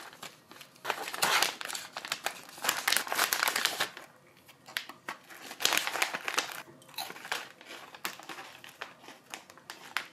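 Plastic snack bag crinkling as it is handled and opened, in repeated bursts with short pauses.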